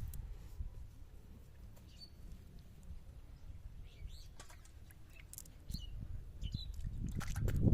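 Scattered short bird chirps over a steady low rumble, with a louder burst of low noise and clicks near the end.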